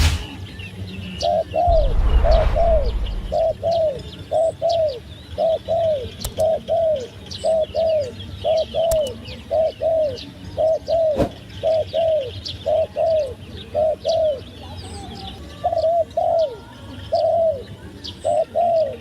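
A turtledove cooing in a long, regular series of paired coos, each note falling in pitch, with only brief gaps near the end. Small birds chirp faintly in the background, and a low rumble sounds over the first few seconds.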